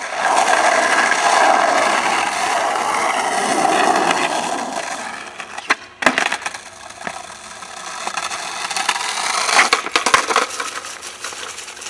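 Skateboard wheels rolling on rough asphalt, then sharp clacks of the board popping and hitting the ground about six seconds in, with a few more knocks of the board a little before the end.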